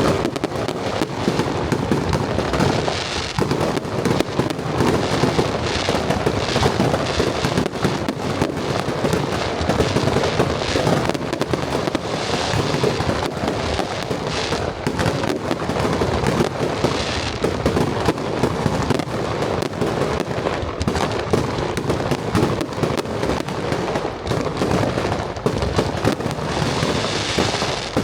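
Dense, unbroken barrage of aerial firework shells bursting one over another, a continuous string of bangs and crackles with no pause.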